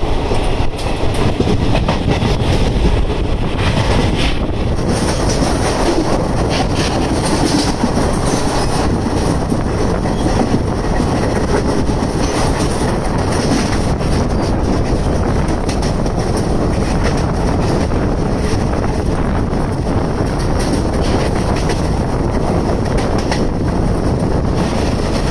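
Gowthami Express passenger train running on the track: a steady running noise with the wheels clicking over the rail joints.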